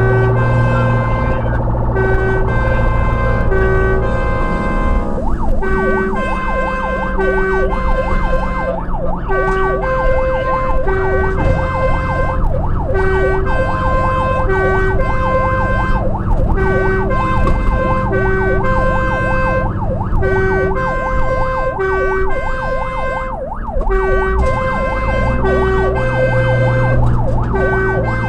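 Fire engine's two-tone siren switching between two pitches about every half second. From about five seconds in it is joined by a fast warbling siren tone. The truck's engine runs steadily underneath, heard from inside the cab.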